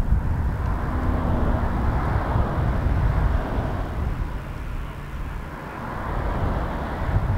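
Rolls-Royce Trent XWB jet engines of an Airbus A350-941 during its landing rollout: a steady rushing noise with a heavy low rumble, dipping briefly about five seconds in.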